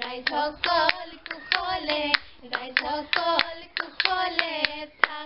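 Women's voices singing a bihu naam, an Assamese folk song, kept in time by sharp hand claps and the clack of a split-bamboo toka clapper, about two to three strokes a second.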